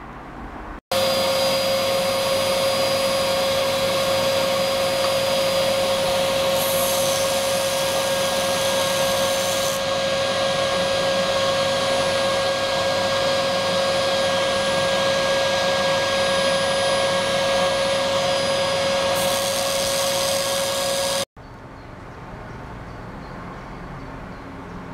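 Vacuum pump running steadily for suction filtration through a Büchner funnel: a loud motor drone with a strong steady hum tone, starting suddenly about a second in and cutting off sharply near the end. A higher hiss joins it twice, for about three seconds in the middle and again just before it stops.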